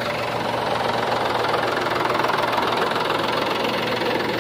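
Tractor's diesel engine running steadily close by as it pulls a fully loaded 16-foot trolley of maize.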